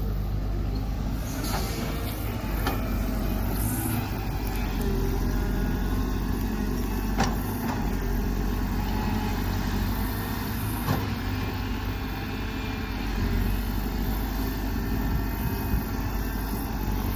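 Excavator engine running steadily with a low hum, with a couple of sharp knocks about 7 and 11 seconds in.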